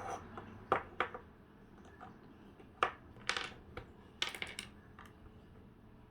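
Small plastic toy pieces being handled, a scatter of light clicks and clatters with quick little runs of them around three and four seconds in.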